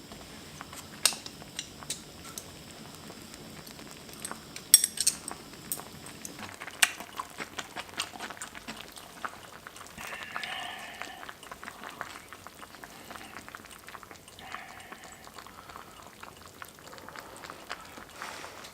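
Metal utensils clicking and clinking against a bowl of pork bone soup several times, followed about halfway through by two longer wet slurping or sipping sounds.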